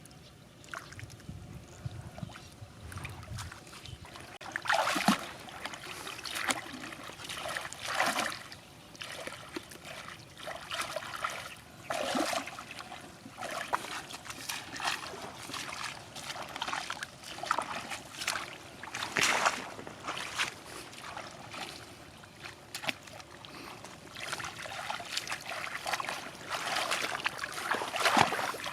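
Water trickling and splashing, with irregular louder splashes every few seconds.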